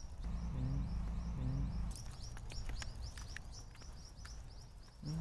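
A bird chirping over and over, short high chirps about three or four a second, with a low rumble during the first two seconds.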